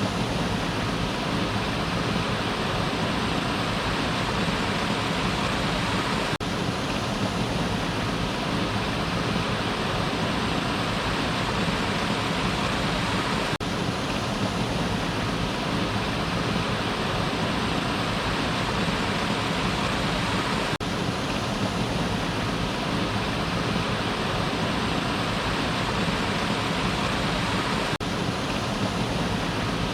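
Waterfall: water falling in a steady, unbroken rush.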